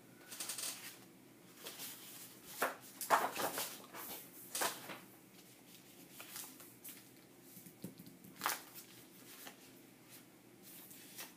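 Sheets of paper and cardstock stickers rustling and sliding as they are shuffled about by hand on a cutting mat, in irregular bursts with a few sharper flaps.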